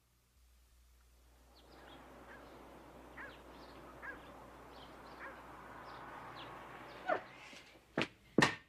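Outdoor ambience with a small bird chirping over and over, a short falling chirp roughly once a second. A single louder call comes about seven seconds in, then two sharp knocks near the end.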